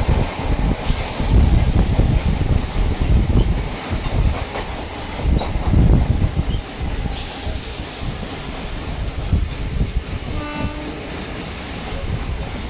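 Freight wagons of a long goods train rolling past at speed: a heavy rumble with rhythmic wheel clatter over the rail joints, easing a little in the second half. A short horn blast sounds about ten and a half seconds in.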